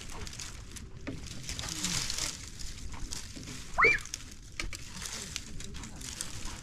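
Dry branches and leaves rustling and crackling as they are gathered and dragged over the ground. A single short high-pitched cry rises and falls about four seconds in.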